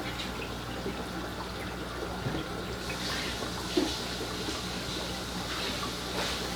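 Aquarium water trickling steadily over a low hum, with a few small splashes from a fish net being worked in the tank, one about four seconds in and another near the end.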